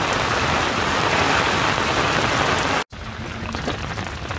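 Heavy rain pouring down, a dense steady hiss. It cuts off suddenly about three seconds in, and lighter rain follows.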